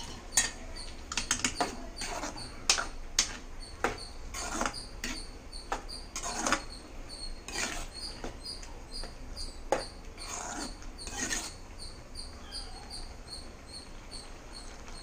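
Metal spoon scraping and clinking against a metal kadai while a thick mixture of cooked cucumber and ground coconut paste is stirred: irregular scrapes and clicks that thin out after about eleven seconds.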